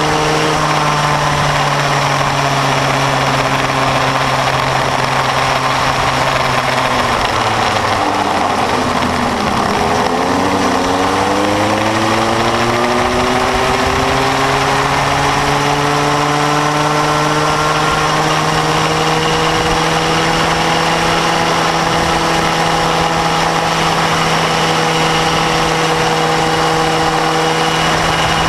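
Onboard sound of a Bambino go-kart's small two-stroke engine running at a steady pitch, dropping away about eight seconds in as the kart slows, then climbing in pitch as it accelerates back up to speed and holding there. Wind and road noise hiss on the microphone.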